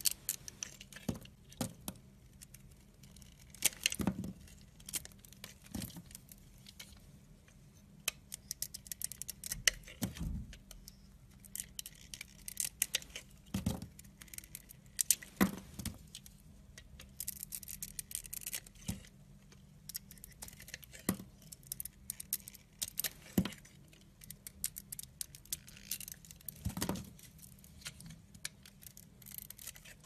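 Utility-knife blade shaving and cutting thin slices off a bar of soap: irregular crisp crackling and scraping strokes with sharp clicks.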